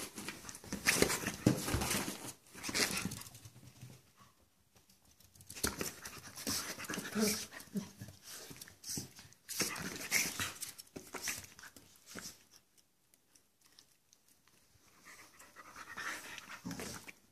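A Chihuahua and a Portuguese Water Dog play-fighting, panting and snuffling as they mouth at each other on soft bedding, in three bouts of a few seconds each with quiet gaps between.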